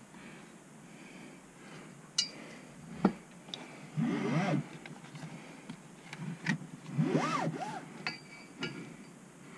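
Metal hardware and hand tools clinking and scraping as a harness bar is fitted and its bolts are lined up, with scattered sharp clicks. Two short pitched sounds rise and fall, about four and seven seconds in.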